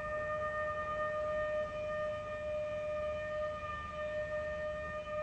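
A steady pre-firing warning siren tone for the rocket motor test, held on one unchanging pitch with overtones above it.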